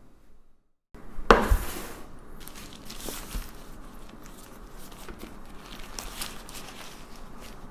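Brief silence, then a loud knock just over a second in, followed by brown parchment paper crinkling and rustling as it is peeled open from rolls in a stainless-steel tray.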